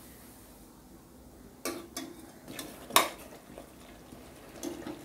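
Steel ladle knocking and scraping against a stainless steel pressure cooker while stirring thick chicken masala as its liquid is cooked down. There are a few sharp metallic clinks with a short ring, the loudest about three seconds in.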